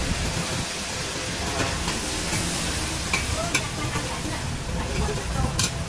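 Short noodles sizzling on a flat steel griddle as a metal spatula stirs and scrapes them, with a few sharp clicks of the spatula against the metal.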